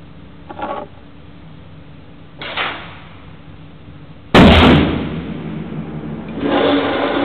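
A single shot from a .303 Lee-Enfield No.4 Mk1 rifle about four seconds in, sudden and very loud with a short ringing tail off the walls of the indoor range. Two softer knocks come before it, and a steady noise rises near the end.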